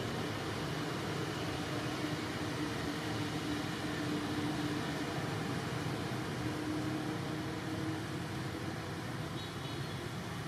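Steady outdoor background noise, with a faint low hum that comes in about three seconds in and again near seven seconds.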